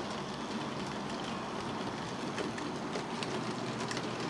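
OO gauge model goods train running past on its track: a steady rolling rattle of the wagons' small wheels, with scattered light clicks, over a low steady hum.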